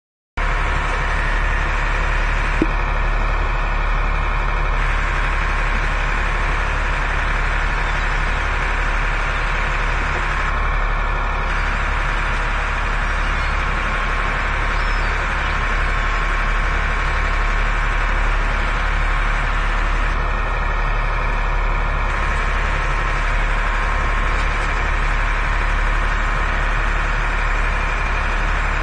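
Fishing boat's engine running steadily. A faint high tone comes in briefly three times over it.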